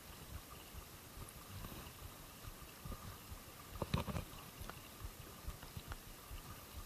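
Handling noise from a spinning rod and reel being worked during a lure retrieve: scattered low knocks and rustling, with one louder knock about four seconds in.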